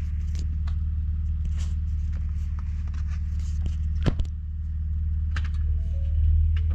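A Ford Raptor's twin-turbo EcoBoost V6 runs at low revs as the truck creeps and swings around on icy snow, picking up a little near the end. About four seconds in comes one sharp clunk.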